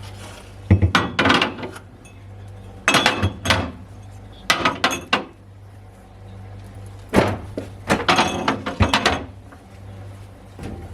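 Household objects being handled and set down: four clusters of knocks, clinks and rustling, the longest from about seven to nine seconds in, over a steady low hum.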